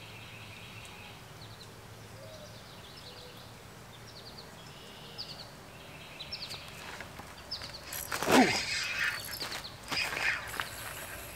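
Small birds chirping repeatedly in the trees over a quiet creek. About eight seconds in, a loud swish and rustle as the angler stands and sweeps the fishing rod up to set the hook, followed by more rustling of movement.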